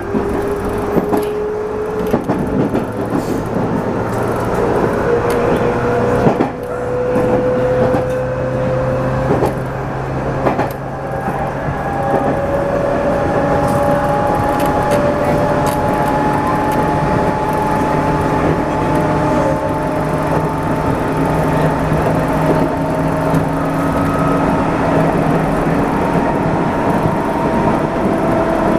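213 series electric train's motor and gear whine, several tones rising slowly in pitch as the train gathers speed, over steady wheel and rail rumble. A few sharp clunks come in the first ten seconds or so.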